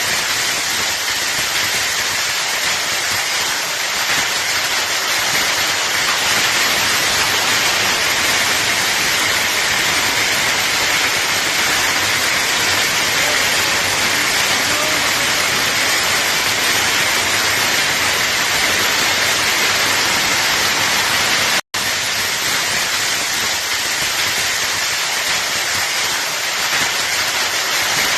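Torrential rain with hail pouring down steadily. The sound cuts out for an instant about three-quarters of the way through.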